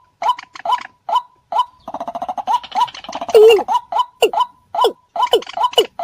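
Bird-lure recording of paddy-field rail calls, of the kind used for white-breasted waterhen and moorhen: short calls repeated about two to three a second. Around the middle they give way to a fast rattling chatter and one louder falling call, and later calls sweep downward in pitch.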